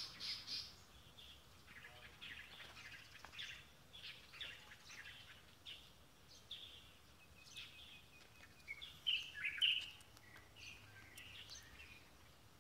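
Small birds chirping with many short, quick calls, the loudest cluster about nine to ten seconds in, over a faint steady outdoor background.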